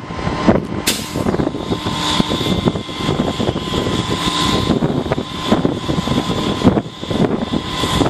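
Heavy rotator tow truck's diesel engine running steadily under load while it works its boom, with a sharp knock about a second in.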